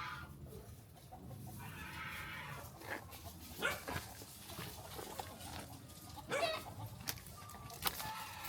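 Chickens clucking softly, with a few short, separate calls spread through.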